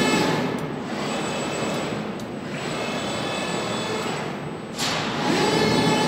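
Drive motors of a LoyalMak CNC plasma cutting table whining as the gantry and torch carriage travel along the table under motor power. The whine is a steady many-toned hum that weakens about a second in, comes back strongly, drops out briefly near five seconds and then starts up again.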